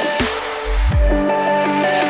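Electronic dance music: a synth melody with a deep bass swell about halfway through, after which the high end is filtered away.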